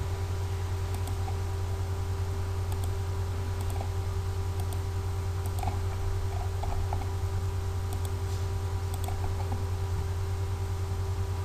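Computer mouse clicking, about seven light clicks spread through, several in quick pairs, over a steady low electrical hum.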